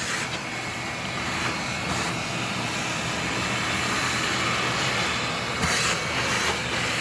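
Steady motor drone with a faint low hum running under it, and a brief noisy rustle about five and a half seconds in.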